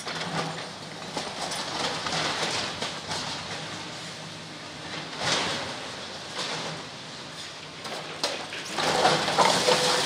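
An excavator demolishing a brick building: rubble crunching, scraping and tumbling as the machine tears at the walls, with irregular surges and a louder stretch of grinding near the end.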